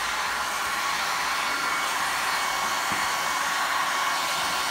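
Electric heat gun blowing steadily, an even rushing hiss of its fan and hot air, held close to thick windshield protection film to heat-shrink it into shape.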